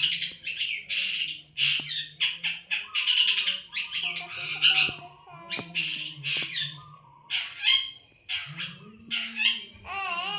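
Long-tailed shrike (cendet) calling in a rapid, irregular run of harsh, rasping squawks, mixed with a few shorter pitched notes.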